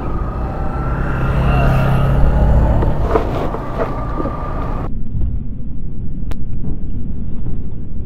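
Road traffic passing: cars and motorcycles going by, with engine noise and some wavering engine whines. About five seconds in the sound changes abruptly to a duller, deep noise of a car passing close.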